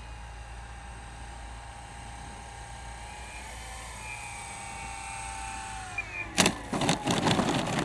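Brushless outrunner electric motor and 18-inch three-blade propeller of a large foam RC P-40 Warhawk whining at low throttle on landing approach, the pitch sagging slightly. About six seconds in, a loud thump at touchdown, then a run of knocks and rattles as the plane rolls out on the frozen grass.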